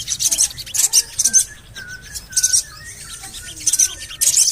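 Sogon songbird calling: harsh, high-pitched scratchy bursts about every second, with a run of short, clear 'cuit cuit' chirps between them.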